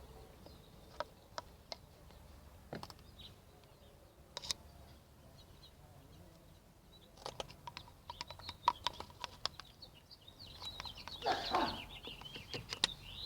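Scattered small clicks and handling noises, coming thickest in the second half, with birds chirping in the background.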